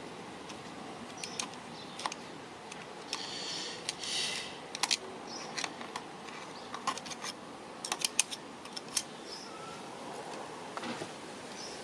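Light, irregular metal clicks and taps of a screwdriver tip working among the small planetary reduction gears of a Mitsubishi starter motor while grease is dabbed onto the pinions, with a brief rustle about three to four seconds in.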